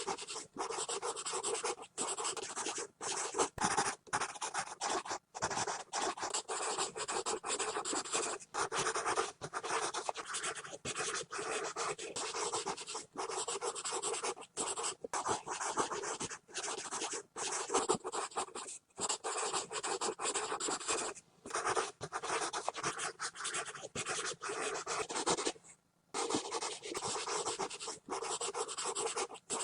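Pencil scribbling hard and fast on paper: a continuous scratchy rasp broken by many brief gaps, with a longer pause about 26 seconds in.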